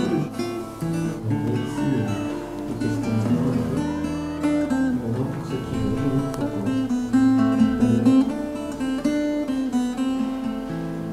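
Acoustic guitar playing a slow run of chords and notes.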